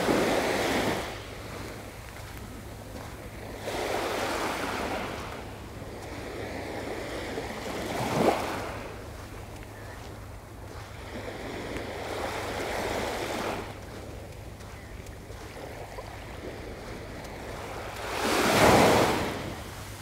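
Waves breaking and washing up on a sandy beach, a rush of surf that swells and fades about every four seconds, the loudest one near the end. A light steady rumble of wind on the microphone runs underneath.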